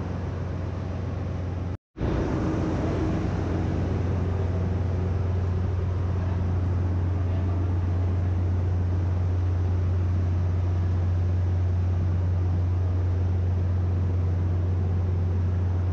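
Ship's engine-room machinery running steadily, a constant noise with a strong deep hum, broken by a brief gap of silence about two seconds in.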